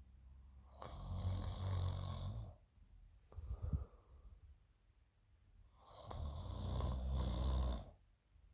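A person snoring in their sleep. There are two long snores, each about a second and a half, one about a second in and one near the end, with a shorter breath sound between them.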